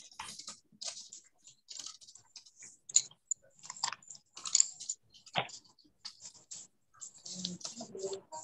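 Scissors snipping through paper in short, irregular cuts, with paper crackling between them, a few snips sharper than the rest.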